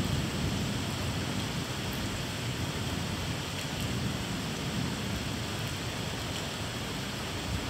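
Steady rain during a thunderstorm, an even hiss, with a low rumble of thunder underneath.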